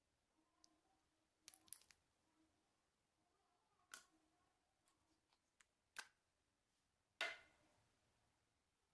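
Slime being worked by hand, with lipstick being mixed in: a handful of short, separate sounds with quiet between, a quick cluster in the first two seconds and the loudest, with a brief fade, about seven seconds in.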